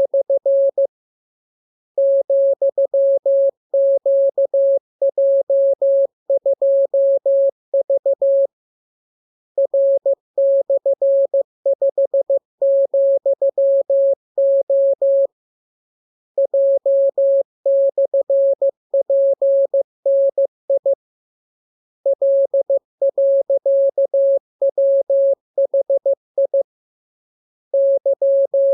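Morse code sent as a single steady beep-tone keyed on and off in dots and dashes, in runs of several seconds broken by pauses of about a second. It is code-practice sending of letters and signs, meant for learning to receive Morse by ear.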